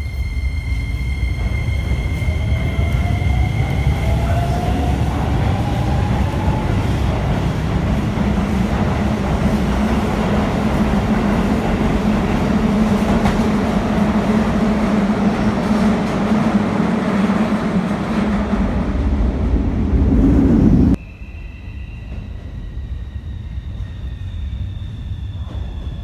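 Electric commuter train running through the station with a loud rumble of wheels on rail, a rising motor whine in the first few seconds and a steady low hum later. About 21 seconds in the sound cuts off suddenly to a quieter hum with a few steady high tones.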